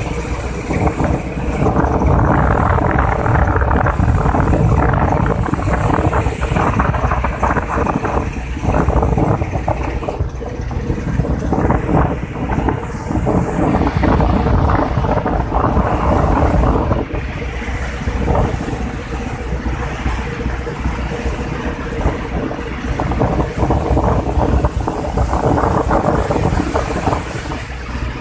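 Fishing boat under way in rough sea: a steady engine hum under loud, surging rush and splash of waves along the hull, with wind buffeting the microphone.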